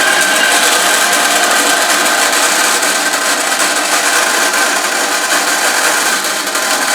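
Bandsaw with a bimetal blade, slowed to about 900 feet per minute for metal, running steadily as it cuts through brass plate.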